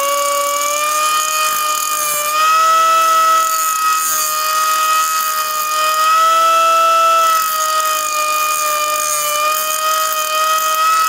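3-inch cut-off tool with an abrasive metal-cutting disc running at full speed, grinding the head off a steel roller-chain pin. A loud, steady high whine that sags slightly in pitch a few times as the disc bites into the pin.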